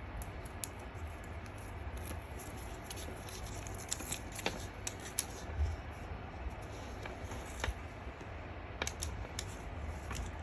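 Scattered clicks, scrapes and rustles of hands handling and opening a product box and its packaging, over a low steady hum.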